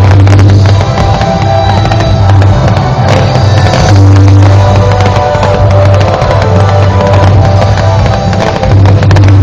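Loud music with a strong bass line, very close to overloading, with firework bangs and crackle mixed through it.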